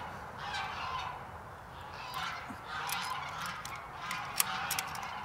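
Domestic geese honking repeatedly. From about three seconds in there is a run of sharp clicks as the metal door latch and pin are handled on the steel tube frame.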